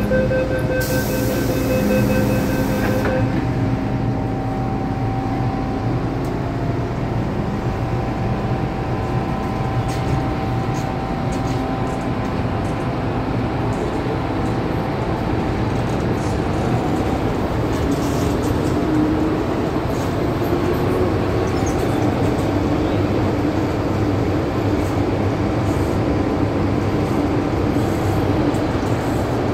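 MTR M-Train metro car running, heard from inside the saloon: a steady rumble of wheels on rail and running gear. A rapid beeping tone sounds for the first few seconds, and a rising whine comes in around the middle.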